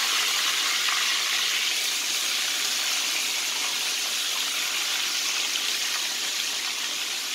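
Breaded pork chops deep-frying in hot oil in a skillet: a steady, dense sizzle of bubbling oil.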